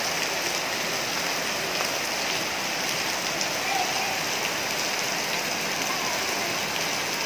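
Heavy rain pouring steadily onto a brick-paved road and the trees around it, an even, unbroken hiss.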